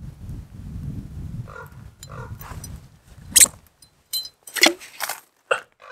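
Common ravens calling: a string of short croaking calls, about eight of them, starting about a second and a half in. Low wind rumble on the microphone under the first few seconds.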